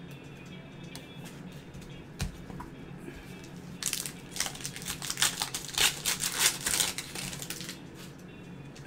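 Foil wrapper of a trading-card pack crinkling and tearing as it is ripped open by hand, a crackly rustle for about four seconds from about four seconds in. A soft thump comes about two seconds in.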